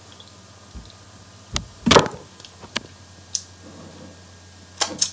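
A handful of separate clicks and knocks from a metal spoon and tableware being handled at a table, the loudest about two seconds in with a dull thud under it, and two quick clicks near the end.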